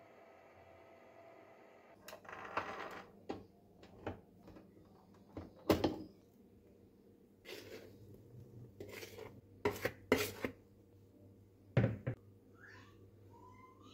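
A stand mixer's faint motor hum stops about two seconds in, followed by a string of sharp metal knocks and clatters as the wire whisk attachment and stainless steel mixing bowl are handled.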